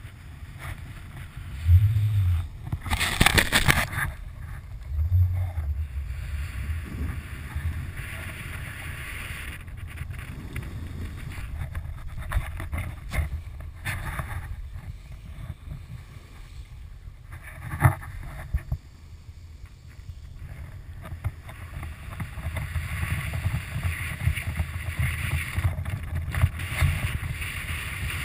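Snowboard sliding over freshly fallen snow: a steady hiss of the base on the snow, with low wind rumble on the microphone. A loud burst of scraping noise comes about three seconds in, and a sharp knock about two-thirds of the way through.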